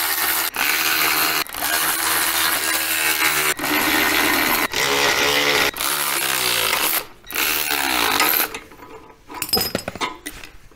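A power tool runs in about seven bursts of one to two seconds, its motor pitch sagging and dropping in the middle bursts as it works bolts on the MGB front crossmember and steering rack. It stops before the end, followed by a light clatter of parts being handled.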